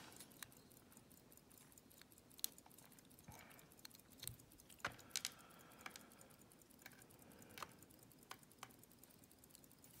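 Faint, scattered small clicks and ticks of steel tweezers against a brass Master Lock rim cylinder and its tiny pins as the pins are picked out and set into a pin tray. A few sharper taps come about two and a half, five and seven and a half seconds in.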